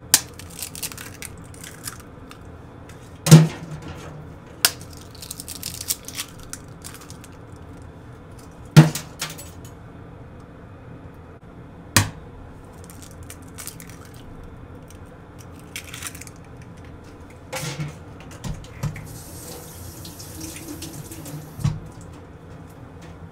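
Eggs being cracked one after another against a hard edge over a frying pan: about five sharp knocks of shell spaced several seconds apart, with softer clicks between them and a faint hiss near the end.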